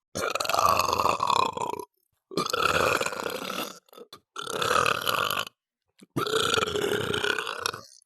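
A person burping: four long burps in a row, each lasting about one to two seconds, with short silent gaps between them.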